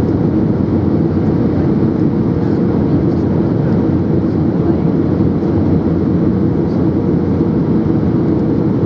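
Steady cabin noise inside an Airbus A320-214 on approach: the low, even drone of its CFM56 turbofan engines mixed with the rush of air over the airframe.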